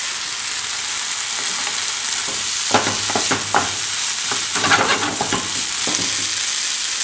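Onions and freshly added garlic sizzling in a frying pan with a steady hiss while a wooden spoon stirs and scrapes through them, with a run of spoon scrapes and knocks about three seconds in and again near five seconds.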